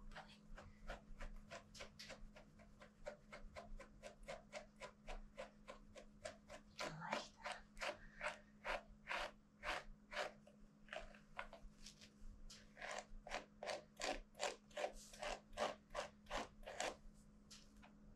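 Dog brush stroked repeatedly through a Shih Tzu's long coat, a quick scratchy brushing about three strokes a second.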